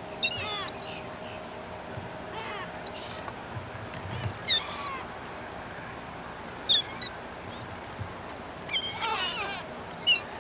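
Gulls squawking: a flock gives short, high calls in scattered bursts, several birds at once around nine seconds in.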